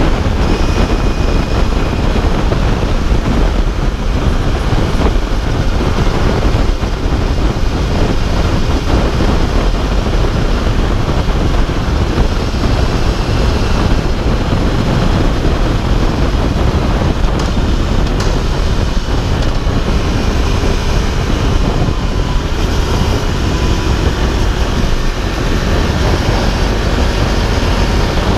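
Steady wind rush on the microphone of an Aprilia RSV4 sportbike riding at freeway speed, with its V4 engine running underneath.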